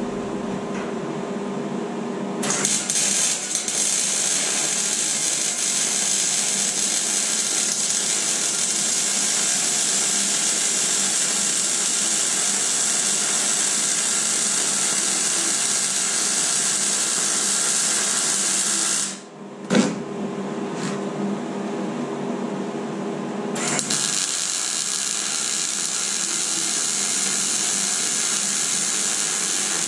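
Wire-feed MIG welder arc hissing and crackling steadily in two long runs. The first starts about two seconds in and stops about nineteen seconds in. After a short pause with only a low hum and a click, the second starts about twenty-four seconds in.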